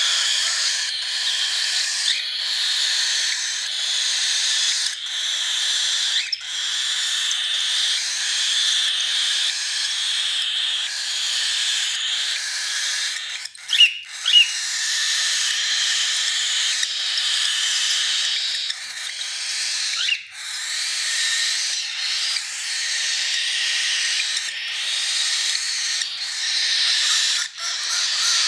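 Baby cockatiel's raspy, hissing food-begging call, the feeding response of a chick being hand-fed, kept up almost without a break with short pauses for breath. Two brief, sharper, louder calls come about halfway through.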